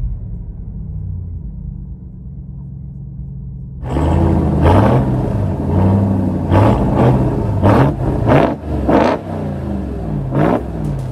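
2021 Ram 1500 TRX's supercharged 6.2-litre Hemi V8 through a Kinney's Tunnel Ram true-dual performance exhaust. It runs with a low, steady note heard inside the cabin. About four seconds in the sound switches to the outside, behind the truck, as the engine is revved repeatedly, each rev rising and falling.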